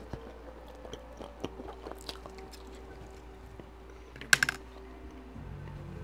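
Close-miked chewing of a mouthful of spicy noodles, with small wet mouth clicks. About four seconds in, a metal fork clatters briefly against the plate; this is the loudest sound. Near the end, low background music comes in.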